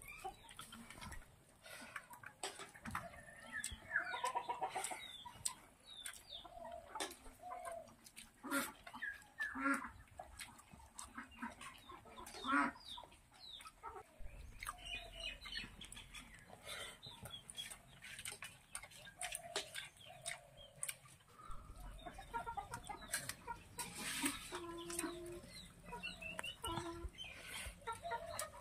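Chickens clucking in short, scattered calls, with frequent sharp clicks among them.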